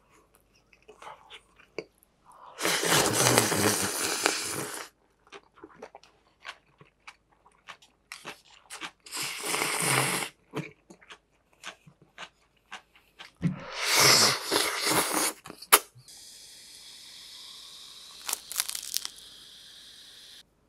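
Close-miked eating: three long, loud slurps, one of them cold naengmyeon broth sipped from a ladle, with soft chewing and small wet mouth clicks between. Near the end a steady hiss runs for about four seconds.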